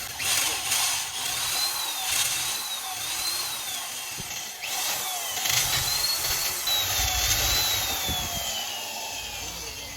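Hand-held electric drill boring a 6.75 mm pilot hole into a cylinder head's camshaft-cap bolt hole. The motor whine rises and dips as the bit bites, then winds down in a long falling whine near the end.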